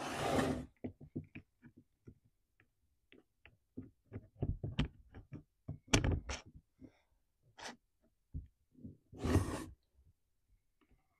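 Scattered light clicks and knocks of a carburetor and its linkage being fitted back onto a Stihl MS211 chainsaw by hand, with a sharper click about six seconds in. A short breathy rush of noise comes at the start and again about nine seconds in.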